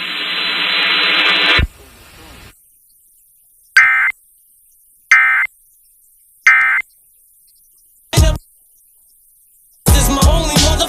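Emergency Alert System audio on FM radio: a harsh buzzing tone for about a second and a half. It is followed by three short screeching data bursts about a second apart, the SAME end-of-message codes that close the alert. A brief burst comes near 8 s, and pop music starts again near the end.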